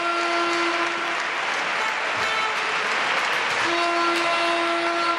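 Ice-rink audience applauding after a synchronized skating performance, with a held pitched tone sounding twice over the clapping, once at the start and again near the end.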